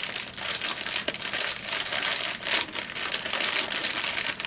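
Clear plastic bags crinkling and rustling continuously as hands open and handle them, with many small crackles.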